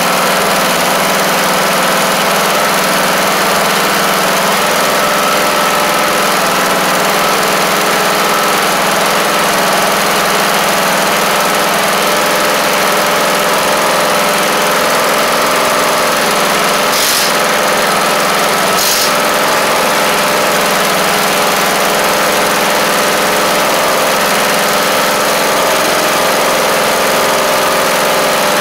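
Newly installed Briggs & Stratton lawn tractor engine running steadily at idle after its first start following an engine swap. Two short clicks come about two seconds apart, a little past the middle.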